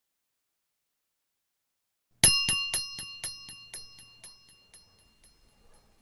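After about two seconds of silence, a single high, bell-like chime sounds, then repeats about four times a second in quickly fading echoes until it dies away.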